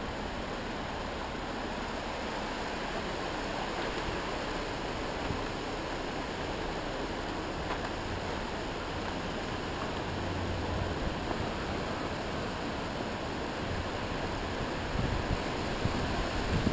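Storm wind rushing steadily, with gusts starting to buffet the microphone near the end.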